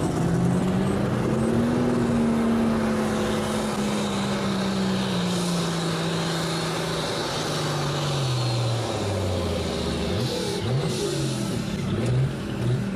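Pulling tractor's engine working under full load while dragging a weight-transfer sled: engine speed climbs in the first two seconds, holds, then sags and falls away as the sled's load builds, followed by a few short throttle blips near the end.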